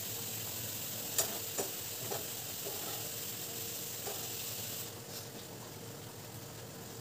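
Tadka sizzling in hot oil in a small steel tempering pan (mustard seeds, cumin, garlic, dry chillies, hing and turmeric), stirred with a steel spoon that clinks against the pan a few times. The sizzle drops off about five seconds in.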